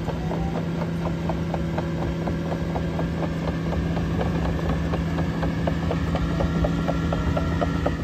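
Cat AP655F tracked asphalt paver's diesel engine running at a steady pitch, with a fast, even clicking of about five ticks a second over it as the machine crawls along.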